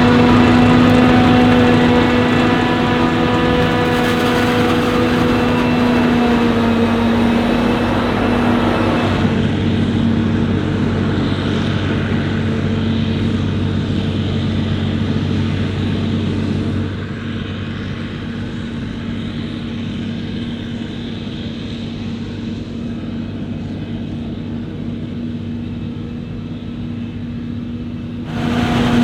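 Heavy diesel farm machinery running steadily, with a steady whine over its engine note. About nine seconds in, the sound turns duller and loses its high whine. It grows quieter again around seventeen seconds and changes abruptly near the end.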